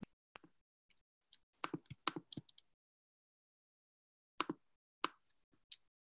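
Faint, scattered short clicks and taps picked up through a video-call microphone: a quick cluster about two seconds in, a stretch of dead silence, then three single clicks near the end.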